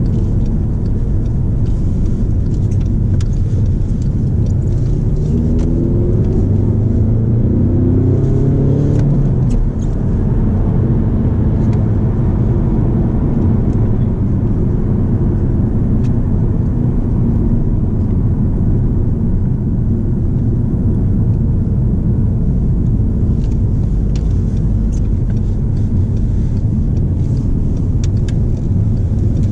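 Cabin sound of a 2013 Volkswagen Passat's 2.0 TDI four-cylinder turbodiesel and road rumble on the move. The engine note rises steadily from about five seconds in as the car accelerates in gear, then drops off with a brief dip just before ten seconds, an upshift. After that it settles back to a steady cruising rumble.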